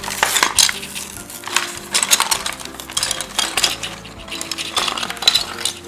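Small plastic toy pieces clattering out of their package, a quick irregular run of clicks and knocks as they tumble and land.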